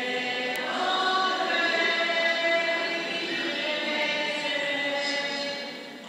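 A group of voices singing a hymn together, holding long notes, with the reverberation of a church.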